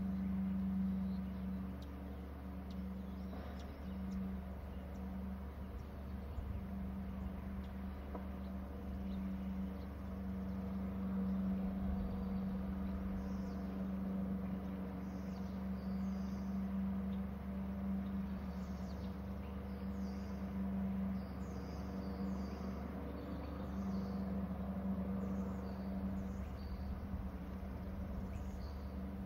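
A steady low hum with a rumble beneath it, and from about halfway through, repeated faint high chirps of birds calling.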